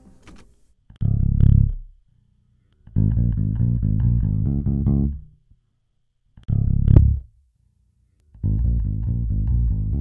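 A recorded bass guitar part looping twice: one long plucked note, a short pause, then a run of quick repeated notes. It plays through an EQ whose bass presets are being switched, so its tone shifts from one pass to the next.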